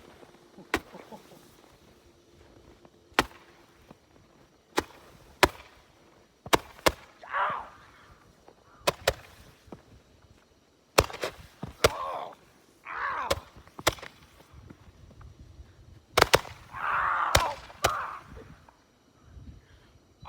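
Fireworks going off: a string of sharp cracks and pops at irregular intervals, some in quick pairs, with several short hissing or rushing sounds between them.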